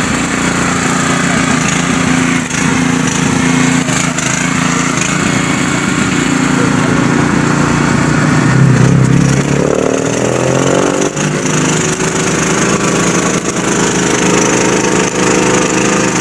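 Engine of a portable engine-driven welding plant running steadily with a low drone; about ten seconds in, its pitch rises and holds higher.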